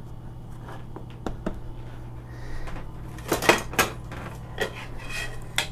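Scattered light clicks and metallic clinks from hands working on carpeted stairs with stainless steel handrails, with a short cluster of clinks a little past halfway. A steady low hum runs underneath.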